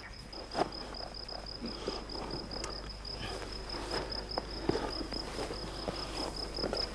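A cricket chirping in a fast, even pulse throughout, with faint scattered snips and rustles of scissors trimming wool from a sheepskin.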